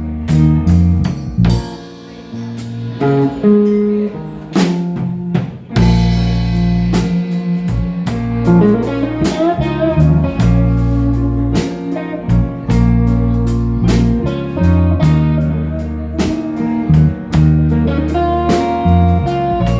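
Blues band playing an instrumental passage with no vocals: guitar lead over bass and drum kit. The guitar bends notes about halfway through.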